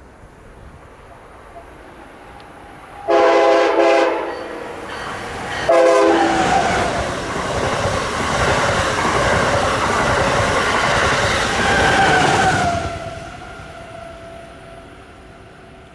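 Passenger train sounding its horn, one blast of about a second and then a short one, then rushing past at speed, the noise fading away in the last few seconds.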